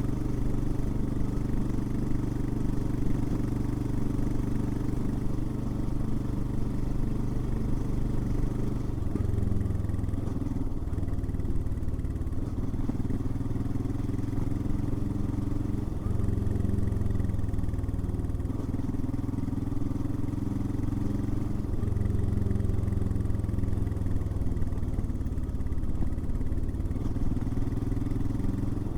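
Royal Enfield Himalayan's single-cylinder engine running under way. Its note steps to a different pitch and strength several times, about 9, 16 and 22 seconds in.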